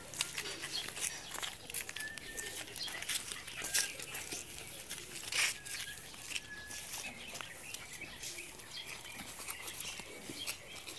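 A husky puppy and a white fluffy dog play-fighting on leashes: scuffling paws on pavement, snuffles and scattered clicks, with a few faint short high chirps.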